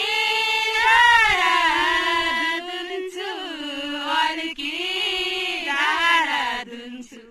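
Women's voices singing a Nepali Deuda folk song unaccompanied, in long, drawn-out phrases whose pitch bends and slides, trailing off just before the end.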